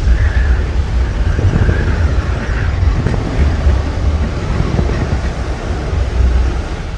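Loud, steady rumbling noise, heavy in the bass, that cuts off suddenly at the end.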